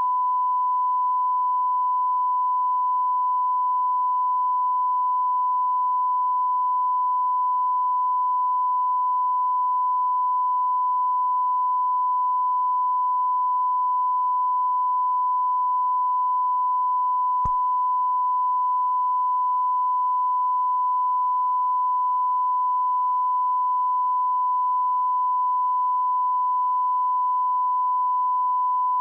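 Television colour-bars test tone: a single pure steady beep at 1 kHz, unbroken and at constant level, with one faint click about halfway through.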